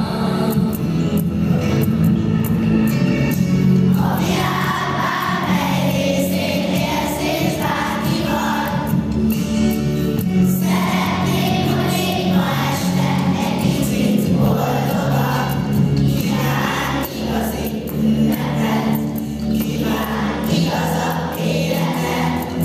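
Children's choir singing a song over a musical accompaniment that sustains low notes throughout.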